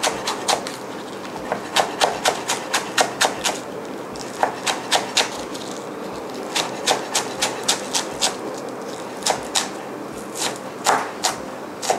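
Chef's knife slicing green onions on a wooden cutting board: runs of quick, sharp knocks, about four a second, broken by short pauses.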